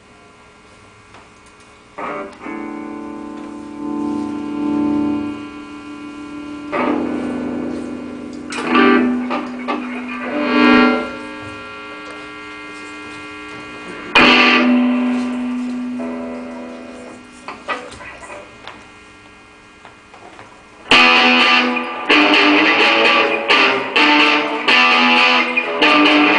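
Distorted electric guitar: after a quiet start, chords are struck and left ringing several times, then near the end steady, loud riffing begins.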